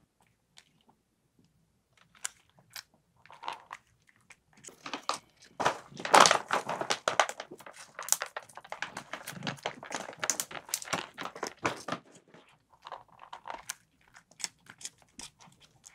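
Two cats eating dry food from a plastic bowl: many quick, irregular crunches that grow dense about five seconds in and thin out near the end.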